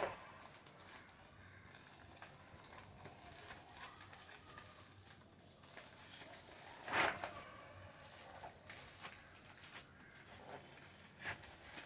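Cardboard packaging and a plastic keyboard being handled: scattered light taps and rustles, with one louder scrape about seven seconds in.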